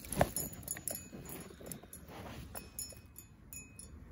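Close handling noise while a caught trout is dealt with on the grass: rustling, light metallic clinks of the unhooking tool, and one sharp knock about a quarter of a second in.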